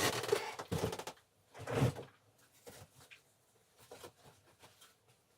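Small plant pots being rummaged and pulled out from under a table: three short rustling scrapes and knocks in the first two seconds, then a few faint light clicks.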